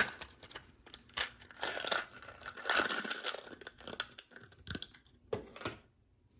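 Small metal collet nuts from a Dremel collet nut kit clicking and clinking together, with plastic packaging rustling as they are handled: a string of short clicks and rustles, the loudest about three seconds in.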